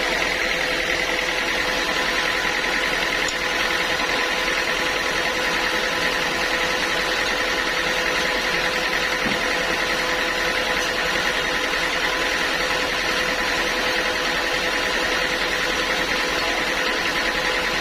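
Sawmill saw machinery running steadily, a continuous mechanical whine over an even rattling noise.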